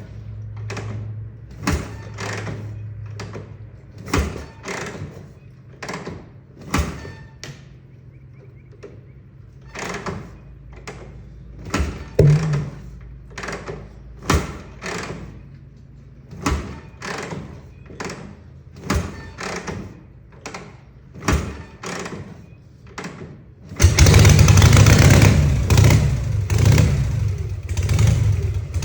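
1960 Harley-Davidson FL Panhead V-twin being kicked over from cold, giving sharp knocks and pops about once or twice a second as it struggles to fire. It is a hard cold start. Some 24 seconds in it catches and runs loudly and unevenly.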